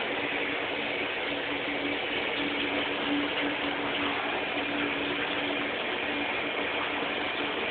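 Handheld shower head running, water spraying steadily into a bathtub, with a faint low hum that breaks off now and then.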